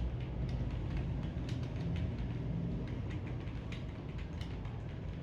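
Fast typing on a computer keyboard: a rapid, irregular run of key clicks over a low steady hum.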